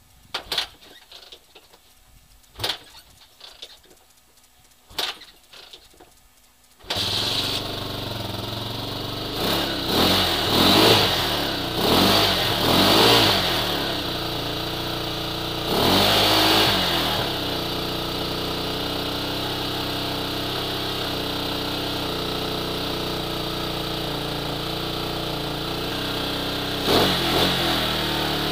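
Single-cylinder Hawk 250 motorcycle being kick-started on a cold start in about 20 °F: a few kicks that don't catch, then about seven seconds in it fires. It is revved several times, settles to a steady idle, and is revved again near the end.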